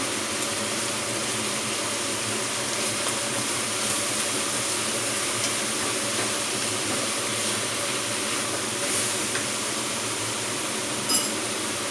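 Sour fermented pork (naem) and egg sizzling steadily while stir-frying in a hot pan, with a brief tap near the end.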